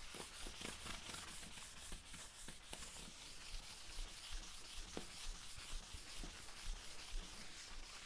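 Cloth pad rubbing Danish oil into a wooden workbench top: a soft rubbing swish in quick back-and-forth strokes.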